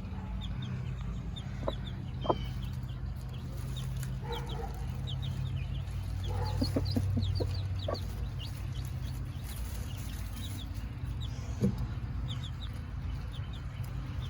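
Baby chicks peeping in short high cheeps throughout, with their mother hen clucking low around the middle, over a steady low hum. A few sharp knocks, twice early on and once near the end.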